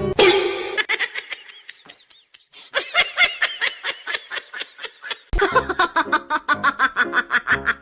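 People laughing in quick repeated bursts. The sound cuts sharply about five seconds in to another stretch of laughter.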